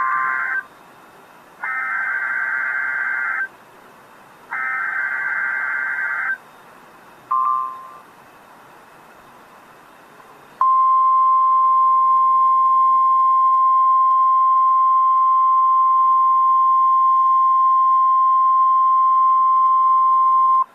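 NOAA Weather Radio Emergency Alert System activation: three screeching SAME digital header data bursts (the first already underway), a short beep, then about ten seconds of the steady 1050 Hz weather-radio warning alarm tone, which cuts off sharply. The sequence signals an incoming alert, here a tornado watch.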